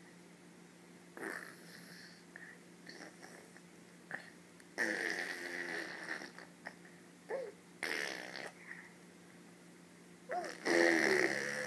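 Vocal noises made by Calvin: four raspy, breathy bursts, each lasting about half a second to one and a half seconds, several with a short squeaky rise and fall in pitch. The longest and loudest burst comes near the end.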